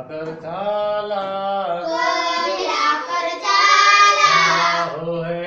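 Children singing together in a melodic, chant-like song, with held notes that glide between pitches.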